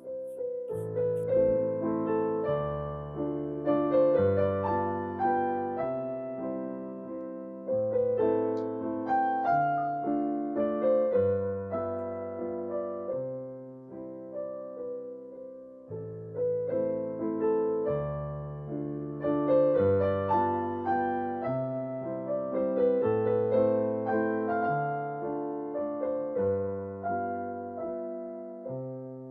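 Background piano music: a melody of struck, fading notes over low bass notes, the phrase starting over about halfway through.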